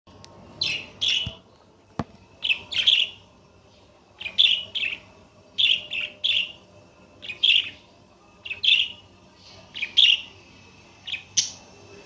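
Caged budgerigar chirping: short, sharp, high calls in quick pairs or threes, repeated about every second and a half. A single sharp tap about two seconds in.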